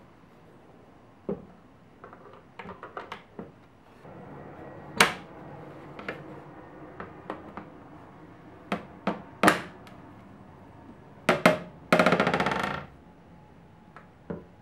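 Pine cabinet door and cup hinges being handled: a run of wooden knocks and metal clicks as the door is hooked onto the hinge base plates, swung and shut, and the cabinet is moved on the bench. A short rapid rattle comes about twelve seconds in.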